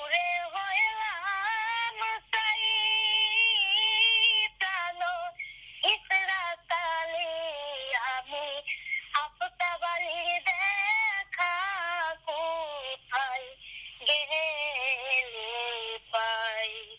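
A very high-pitched, electronically altered voice singing in short phrases with brief gaps, some notes held steady.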